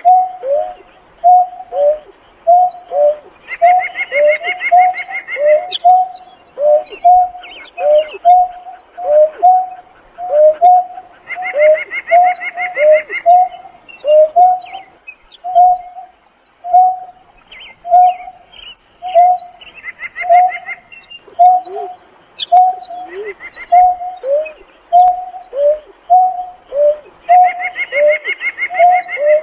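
Greater painted-snipe calling: a long, unbroken series of short, low hoots, about two a second, each dropping slightly in pitch at its end. Four times a higher, rapid trill lasting a second or two sounds alongside the hoots.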